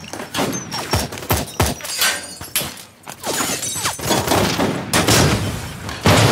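Sustained rapid gunfire from several guns in a shootout, with a short lull about three seconds in, then denser fire and a loud bang near the end.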